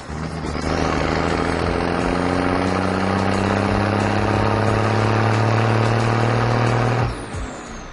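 Heavy vehicle engine running steadily, its pitch creeping slowly upward, then fading out about seven seconds in. A short falling swish comes near the start and again near the end.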